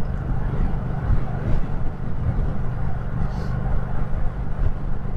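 Yamaha MT-07 with an aftermarket exhaust, its parallel-twin engine running steadily while being ridden, with a continuous low rumble of engine and road noise.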